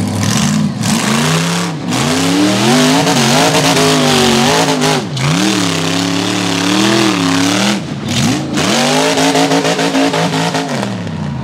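Rock bouncer buggy's engine revving hard at near full throttle, its pitch swinging up and down with several brief sharp breaks as the throttle is worked on a steep rock climb. The revs die away near the end as the buggy rolls over.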